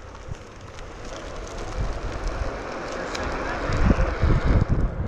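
Wind rushing over the microphone of a moving Onewheel GT electric board, growing louder, with heavy low buffeting from about four seconds in.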